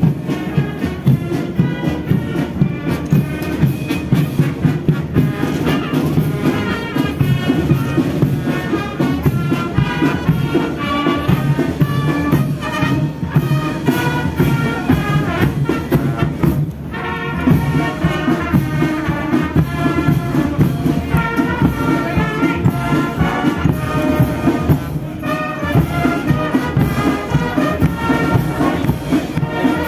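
Massed military brass band playing, with horns and bass drum keeping a steady beat.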